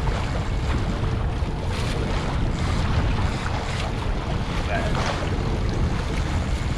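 Sport-fishing boat under way at trolling speed: a steady low rumble with water washing along the hull and wind on the microphone.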